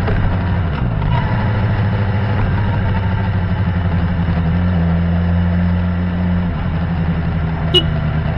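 Suzuki GSX-R 600's inline-four engine running, its note shifting down about a second in, holding a steadier higher note for about two seconds in the middle, then easing off. A single short click near the end.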